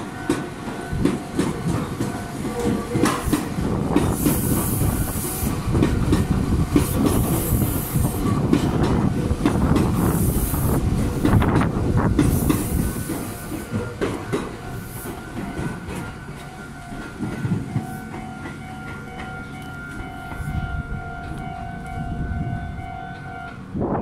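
Meitetsu Panorama Super electric train pulling out and running past below, its wheels rumbling and clattering over the rail joints, with short bursts of high hiss. From about halfway through, steady high tones sound over a lower, quieter rumble as the last cars go by.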